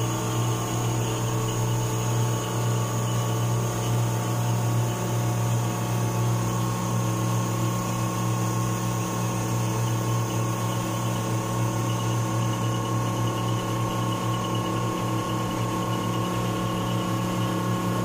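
Shipboard air conditioning plant machinery running: the AC blower fan and refrigeration compressor give a steady hum with several constant tones that does not change.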